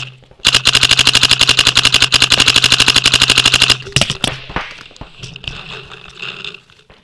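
Paintball marker firing in a rapid, even stream of about a dozen shots a second, starting about half a second in and stopping just before four seconds in. After that come scattered, weaker pops and snaps.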